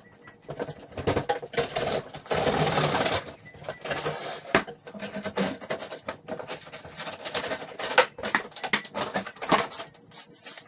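Cardboard box and packaging being opened and handled: rustling and scraping with many irregular knocks and clicks, and a longer steady scrape about two seconds in.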